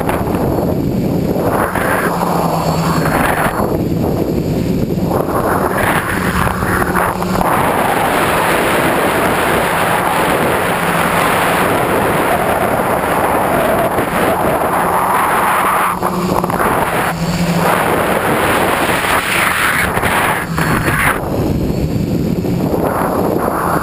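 Wind rushing over the microphone of a camera carried on a multirotor tricopter, with the tricopter's electric motors and propellers humming underneath. The hum's pitch shifts up and down as the throttle changes in flight.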